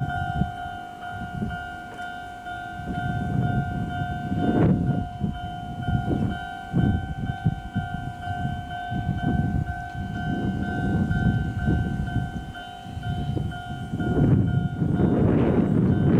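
A steady ringing electronic warning tone, typical of a Japanese level-crossing alarm, sounds over an uneven low rumble and stops about two seconds before the end. As it stops, the rumble of an approaching Izuhakone Railway 3000 series electric train swells and grows louder.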